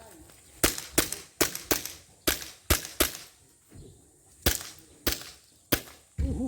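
Airsoft pistol firing a string of about ten sharp shots in uneven bursts: quick pairs and triples in the first three seconds, then three more spaced about half a second apart after a pause.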